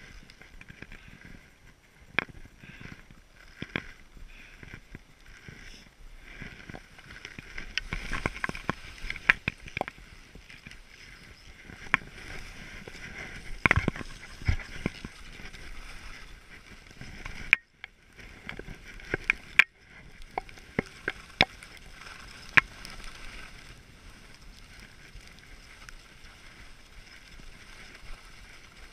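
Skis hissing and scraping over snow on a descent, with scattered sharp clicks and knocks.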